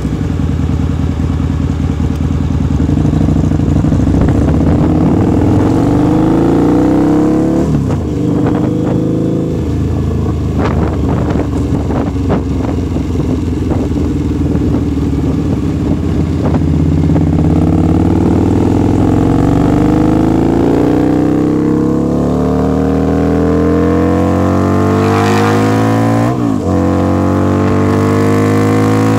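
Harley-Davidson V-Rod's liquid-cooled V-twin running loud through slash-cut mufflers with the baffles removed, pulling under acceleration. The engine note climbs, drops back at each gear change, and climbs again; the last shift comes near the end.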